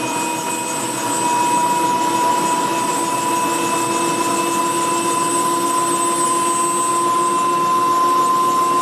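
Bell 206 JetRanger's Allison 250 turboshaft engine running after start: a steady turbine whine over a rushing noise, its pitch creeping slowly upward. The sound grows louder about a second in.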